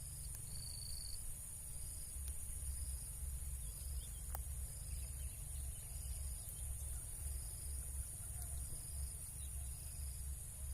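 Insects chirping: a steady high-pitched drone with a short, regularly repeating chirp about every 0.7 seconds over it. A low, uneven rumble lies underneath.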